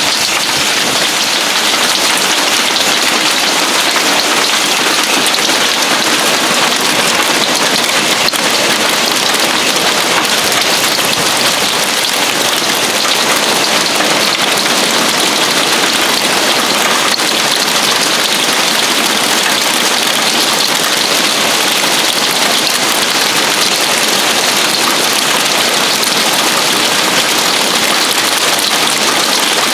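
Hail pelting down on a roof and the ground, a dense, steady hiss of countless small impacts that does not let up.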